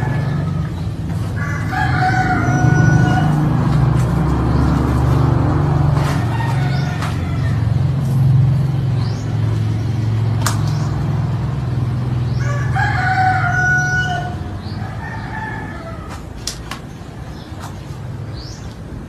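A rooster crowing twice, each crow lasting about a second and a half, the second one about eleven seconds after the first. Under them runs a steady low rumble that fades away after about fourteen seconds.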